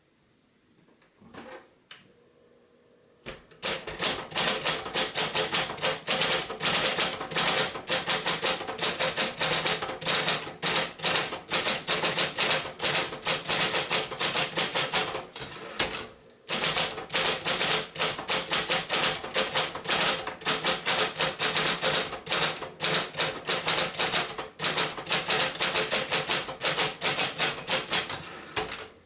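1971 Royal Apollo 10 electric portable typewriter typing in rapid keystrokes, several a second, over the steady hum of its motor. The typing starts about three seconds in and breaks off briefly about halfway.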